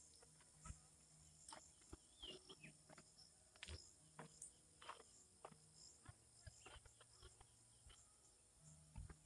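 Near silence: faint countryside ambience with a steady high insect hum and soft, irregular footsteps on a dirt path.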